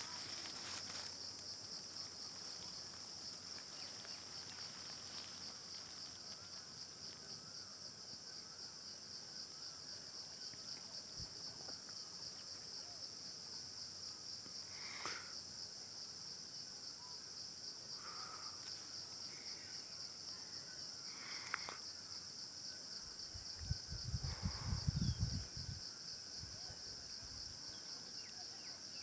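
A steady, high-pitched insect drone, with a few short bird calls scattered through it. A low rumble lasting about two seconds comes near the end.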